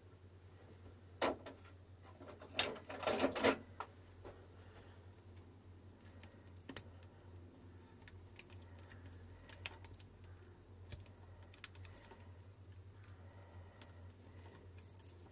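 Small clicks and plastic clatter of gloved hands working the wiring and small plastic plug at the end of an e-bike battery pack, louder in a brief cluster early on and then faint scattered ticks, over a low steady hum.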